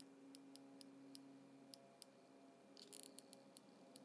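Near silence, with faint scattered clicks from a hot glue gun's trigger and feed as glue is squeezed into the top of a capacitor tube, and a short cluster of clicks about three seconds in.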